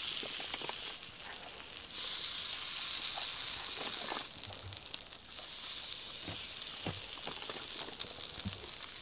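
Cast iron pan sizzling steadily over hot coals as raw cinnamon rolls are set into it, with a few faint taps.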